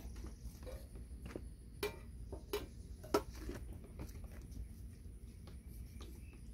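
Paint stir stick tapping and scraping against a plastic mixing cup as high-build primer, hardener and reducer are stirred together: scattered light knocks, the sharpest a couple of seconds in.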